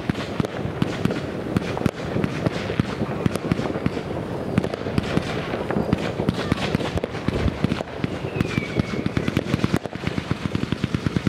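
Fireworks battery (cake) firing a rapid, unbroken stream of shots, each comet launching with a sharp pop, many a second.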